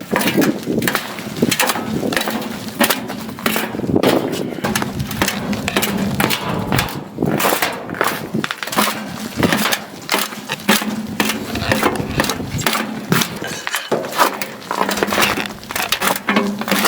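Boots stepping down snow-covered lookout-tower stairs: a long, irregular series of crunching footfalls and knocks.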